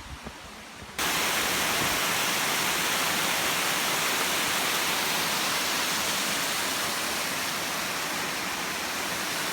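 Small woodland waterfall rushing steadily, an even, loud hiss of falling water that starts abruptly about a second in.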